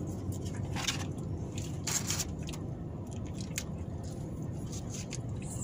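Paper fast-food packaging rustling and crinkling in a few short bursts as hands take fries from the box, with eating sounds, over a steady low hum in the car cabin.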